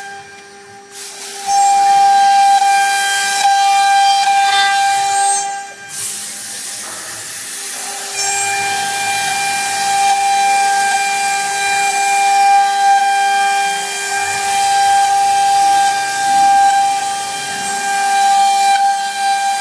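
CNC router's water-cooled spindle, set to 24000 rpm, running with its bit routing grooves in a wood board: a high steady whine over the hiss of cutting. The whine fades away briefly near the start and again about six seconds in, then returns.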